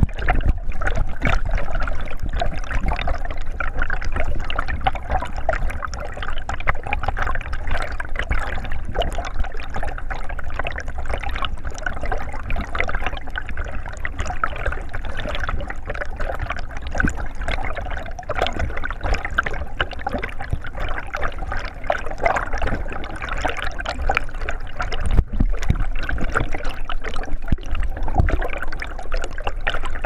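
Shallow stream water rushing and bubbling over a rocky bed, a steady crackling trickle with a low rumble underneath.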